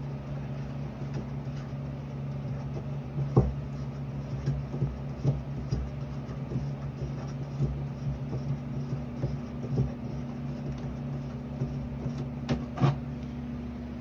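Handling noise from unscrewing the in-tank solution filter of a Tennant T7 scrubber: scattered light clicks and scrapes as the filter is turned out of its threads, with a sharper knock about three seconds in and two more near the end, over a steady low hum.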